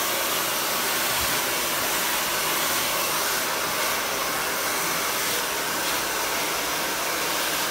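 Hand-held hair dryer blowing hot air, a steady unbroken rush of air.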